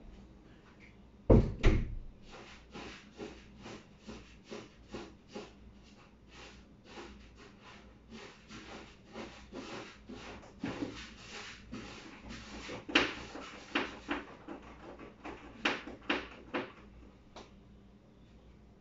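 Cat digging and scratching in a litter box: two louder knocks about a second in, then a long run of quick scratchy strokes that die away near the end. The cat keeps going to its toilet, and the owner thinks it is trying to pass stool and failing.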